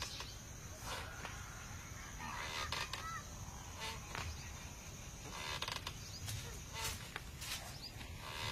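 Swing creaking at its wooden crossbar as a child swings, scattered clicks and creaks, over a steady high insect drone with a few short bird chirps.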